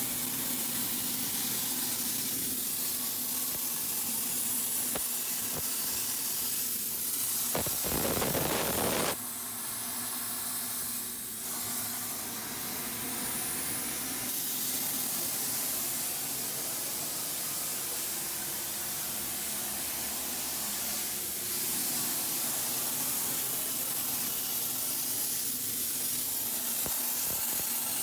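Realcut 125 plasma torch cutting steel on a portable CNC track, a steady loud hiss from the arc and its air jet. About eight seconds in there is a louder, rougher stretch for a second or so.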